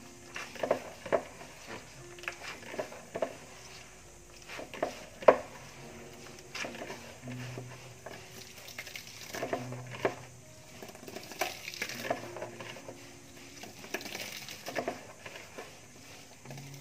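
Bare hands kneading and squeezing wet grated coconut in a plastic basin to press out coconut milk: irregular wet squelching and crunching with short clicks and knocks. The sharpest knock comes about five seconds in.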